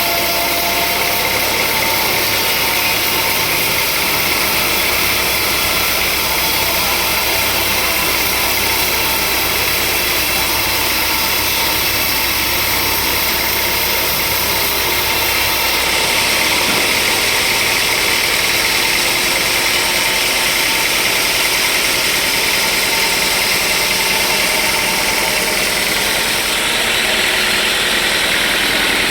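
Sawmill machinery running steadily: a loud, continuous mechanical noise with an engine hum underneath. Its tone changes slightly about halfway through and again near the end.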